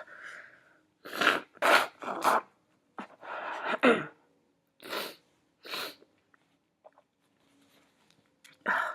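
A woman sneezing in an allergic fit: three sharp sneezes in quick succession about a second in, a longer one soon after, then a few smaller sneezes spaced out, the last near the end.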